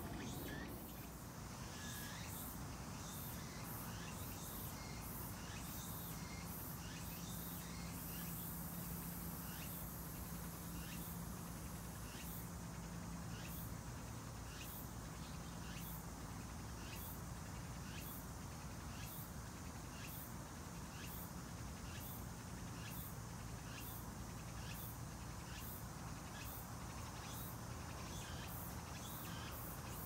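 Insects calling outdoors in an even, high-pitched pulsing, about three pulses every two seconds.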